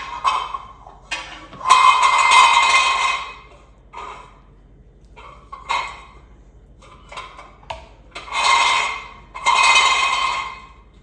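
Seasoning rub being shaken from a shaker container in repeated rattling shakes: one long shake about two seconds in, a few short taps in the middle, and two more long shakes near the end.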